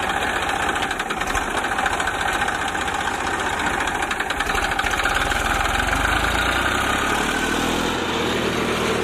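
Tractor diesel engine running steadily while pulling a tine cultivator through the soil. The engine sound grows deeper and fuller about halfway through as the tractor comes close.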